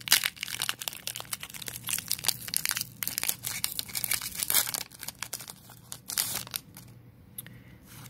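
Foil wrapper of a Pokémon TCG Darkness Ablaze booster pack crinkling and tearing as it is ripped open by hand: a dense run of crackles that thins out after about six and a half seconds.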